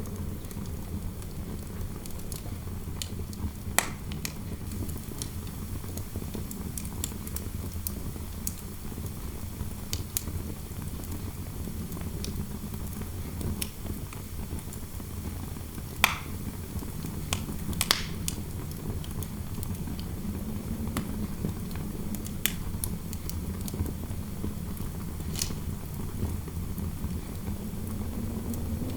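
Fireplace fire crackling with sharp pops, the loudest about 4, 16 and 18 seconds in, over a steady low rumble of wind howling through a room, its moaning pitch rising near the end.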